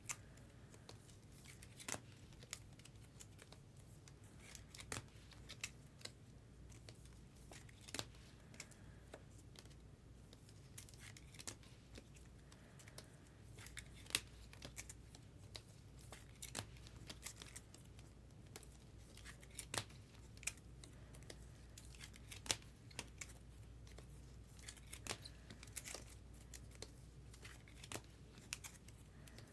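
Baseball trading cards and their pack wrappers being handled: faint, irregular sharp clicks and snaps throughout, with some crinkling and tearing of wrappers.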